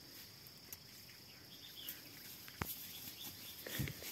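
Faint outdoor ambience: a steady high insect drone with a few short bird calls, more of them near the end, and a sharp click about two and a half seconds in.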